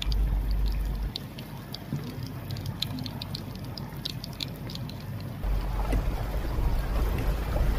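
Muddy floodwater rushing over stones and through scrub, with wind buffeting the microphone as a low rumble that eases after about a second and returns about five seconds in.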